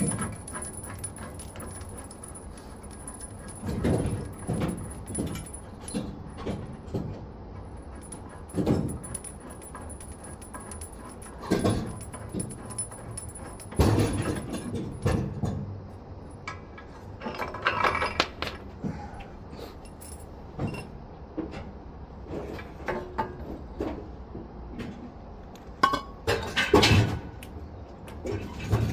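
Hand tools and metal parts clinking, knocking and jangling at irregular intervals while a front wheel hub assembly is worked on, with several louder clusters of knocks.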